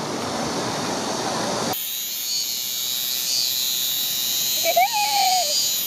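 A dense, steady rushing noise that cuts off abruptly about two seconds in, followed by cicadas singing as a high, steady drone. A child's short voice is heard near the end.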